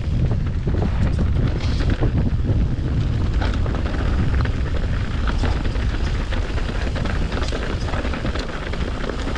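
Wind buffeting the microphone of an e-bike rider moving along a dirt trail: a steady low rumble, with frequent small knocks and rattles from the bike going over the ground.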